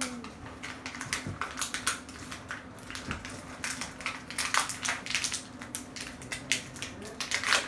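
Irregular rapid clicking and crinkling of plastic toy packaging and pieces being handled.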